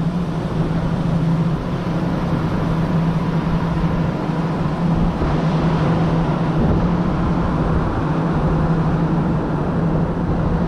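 Steady engine drone at constant speed, a low hum holding one pitch with fainter higher overtones over a background rush.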